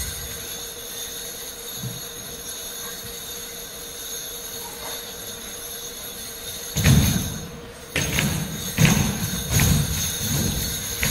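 Percussion accompaniment for a Manobo ceremonial dance: a steady metallic ringing and jingling. From about seven seconds in, deep beats enter, roughly one a second.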